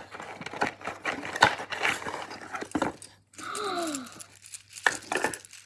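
Gift packaging being crinkled and torn open by hand: dense, irregular rustling and tearing. About halfway through there is a short falling voice-like sound, followed by a few sharp clicks.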